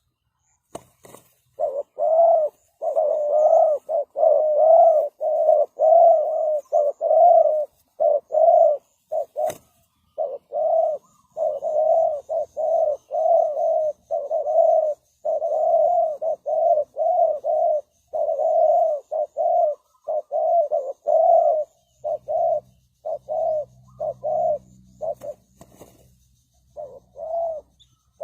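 Spotted dove cooing: a long series of short, repeated coo notes with brief pauses between phrases.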